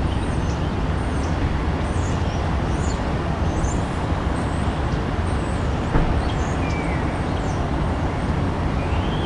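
Steady low rumble of city traffic, with faint, short, high chirps scattered through it and a single click about six seconds in.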